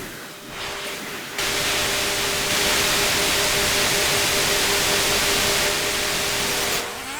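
Laptop cooling fans running at high speed: a steady rush with a faint hum in it, jumping louder about a second and a half in and dropping away near the end.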